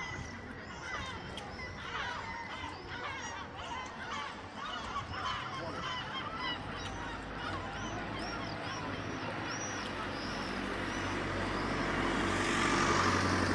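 A large flock of gulls calling at once, many short overlapping squawks. Near the end a broad rushing noise swells up under the calls.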